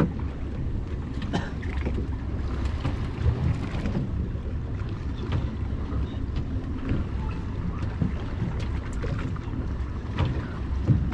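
Steady low rumble of a small fishing boat at sea, with scattered light clicks and knocks from fishing tackle being handled.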